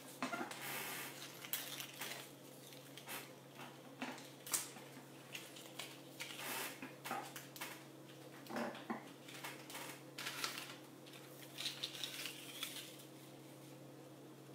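Scattered rustles, taps and knocks of objects being handled and moved, over a steady low hum.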